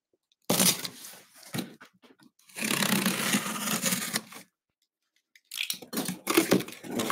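Utility knife blade slicing through packing tape on a cardboard box: a short cut about half a second in, a longer cut of about two seconds, then more cutting near the end.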